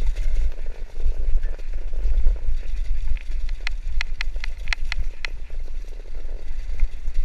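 Mountain bike rolling downhill over a cobblestone trail: a steady deep rumble from the tyres on stone, with the bike rattling. A run of sharp clicks and rattles comes about halfway through.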